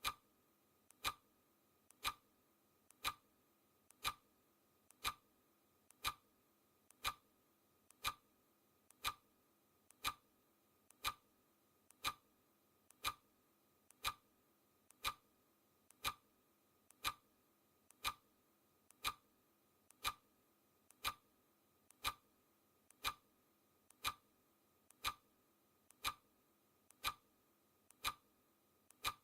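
Clock ticking sound effect, a sharp tick once a second in a steady rhythm, with a much fainter click between the ticks, marking the seconds of a countdown timer.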